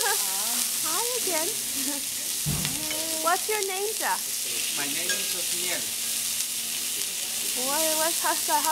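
Meat and skewers sizzling on a hot grill: a steady hiss of frying.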